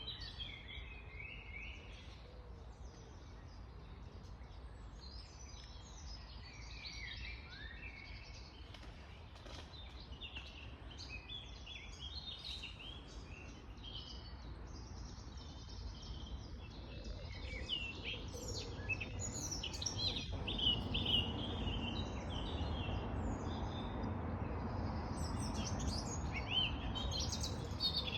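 Birds chirping and twittering, a busy chorus of short calls, over a low steady rumble of background noise that grows louder in the second half.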